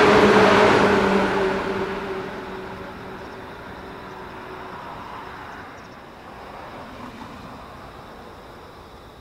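JR 115 series electric train running away after passing, its rumble and low motor hum fading over the first two to three seconds into a faint steady background.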